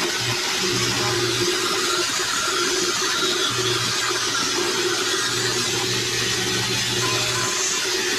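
Bandsaw running steadily, its blade cutting into a turned maple cup.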